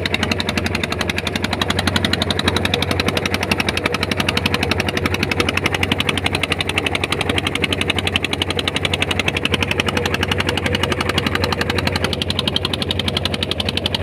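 Engine of a small outrigger fishing boat running steadily under way, a rapid, even chattering beat of exhaust pulses over a low hum.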